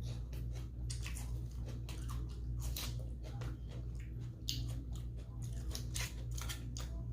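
Close-miked chewing of crisp salad, with many quick crunches and crackles in irregular succession over a steady low hum.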